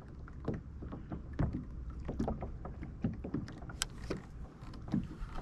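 Water lapping and slapping against a fishing kayak's hull, with scattered small irregular knocks over a low steady rumble.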